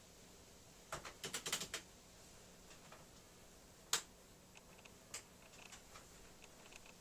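Keys being pressed on the StarWriter Pro 5000's built-in keyboard: a quick run of about seven key clicks about a second in, then a few single clicks, the loudest a sharp one near the middle.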